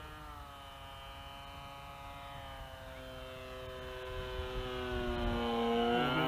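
Radio-controlled flying-lawnmower model plane's motor and propeller droning steadily in flight, growing louder over the last few seconds as it makes a low pass close by.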